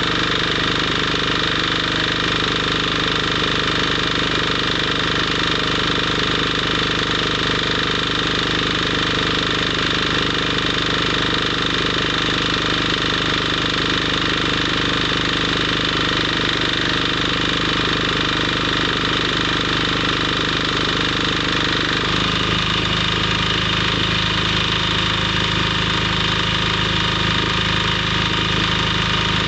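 A steady mechanical drone of a running machine, even in loudness, whose tone shifts abruptly about two-thirds of the way through.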